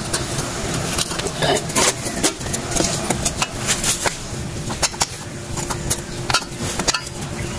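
Irregular metal clinks and taps from handling drum-brake shoes, springs and adjuster on a Mitsubishi L300's rear brake backing plate, over a steady background hum.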